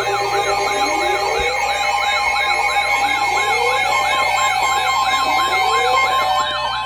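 Several electronic emergency alert signals sounding at once, as alerts stack up for severe thunderstorm warnings: a fast warbling siren-like alarm over steady held alert tones, with a slower rising sweep repeating about every two seconds.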